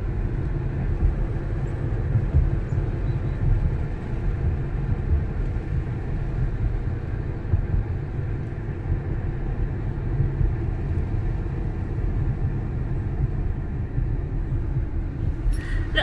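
Steady low road and engine rumble of a moving car, heard from inside the cabin.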